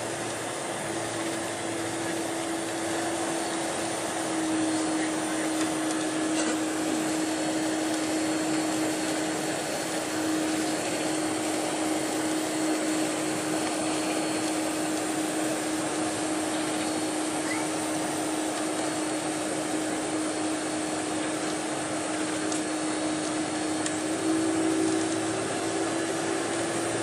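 Inside the cabin of a Boeing 747-400 during taxi: a steady whine from its GE CF6-80C2 turbofan engines at low power over a constant hiss of airflow and cabin noise. A second, slightly higher tone joins the whine near the end.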